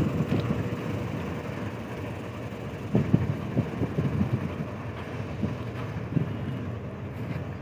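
Empty freight hopper wagons rolling past, their wheels and couplings giving irregular clanks and knocks over a steady rumble.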